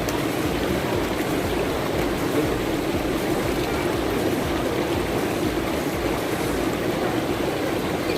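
Rushing water of a stream, running steadily without a break.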